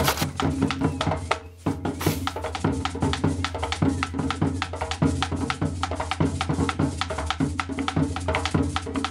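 Upbeat background music with a fast drum and percussion beat over a steady bass line. It drops out briefly about a second and a half in.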